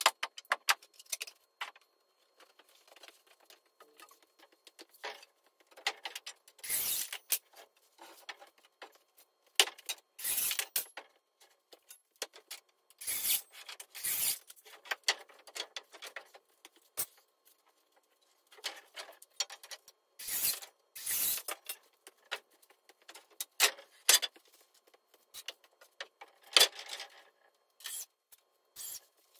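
Irregular clicks, knocks and short scraping rubs of work on a wooden stud-wall frame, as boards and lumber are handled and shifted on a concrete floor. A dozen or so louder scrapes stand out among fainter ticks.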